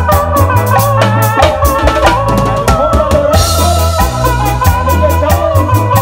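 Live band playing a chilena: drum kit driving a fast, busy rhythm on snare and bass drum under a wavering electronic organ melody and bass, with a cymbal crash a little past three seconds in.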